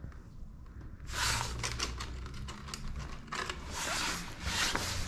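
Warmed-up engine oil running out of a Yamaha YBR125's sump drain hole into a small tub: an uneven, splashing hiss that starts about a second in.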